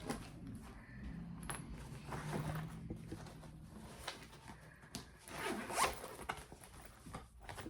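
Zipper on a toiletry bag being pulled, with light rustling and handling noise.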